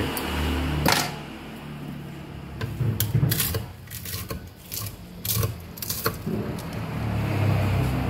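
Kitchen knife tapping on a wooden cutting board while cooked beef is cut up: a scatter of sharp knocks, some in quick succession, over a steady low hum.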